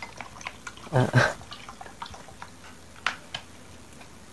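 A person's brief two-pulse chuckle about a second in, followed by a few faint clicks and taps.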